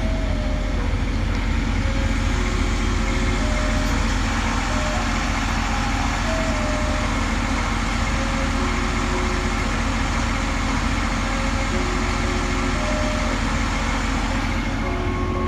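Ice cream truck playing its jingle, a simple tune of short stepping notes, over the steady rumble of the truck's engine.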